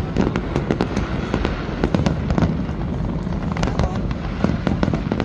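Aerial fireworks going off in rapid succession: a dense, irregular crackle of sharp bangs over a continuous rumble.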